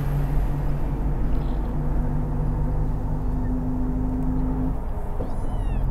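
Bus engine running with a steady low drone, heard from inside the cabin; the note dips briefly about five seconds in. Near the end a frightened Persian kitten gives a faint mew.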